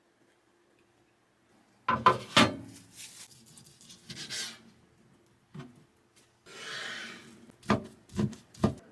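Kitchen handling sounds: a series of sharp knocks of utensils or containers set down on a hard surface, with rubbing and scraping in between, ending in three quick knocks.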